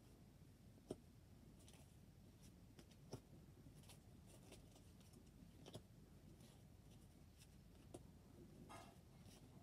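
Near silence with faint handling of stiff photo cards: a few soft clicks and taps a couple of seconds apart as cards are laid down on one another, and a brief brushing slide near the end.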